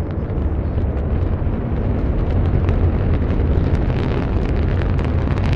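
Antares rocket's first-stage AJ26 engines at liftoff: a steady deep rumble with dense crackling that grows stronger after about two seconds.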